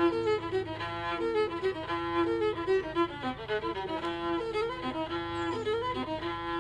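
Fiddle tune played as outro music, a run of quick notes over a low steady hum.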